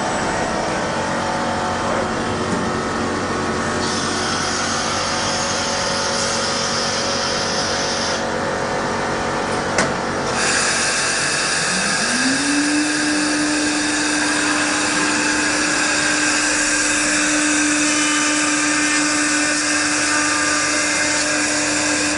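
CNC router running with a steady mechanical hum and hiss. About halfway through, a whine climbs in pitch over about a second and then holds steady, like the spindle spinning up to speed.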